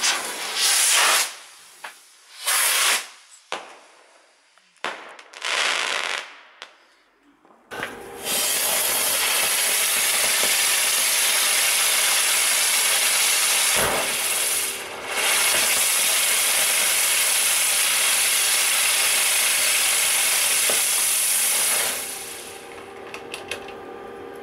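Firework rockets whooshing off in a few short hissing rushes over the first several seconds, then a ground firework spraying red sparks with a loud, steady hiss for about fourteen seconds, broken once by a sharp crack, before it dies away near the end.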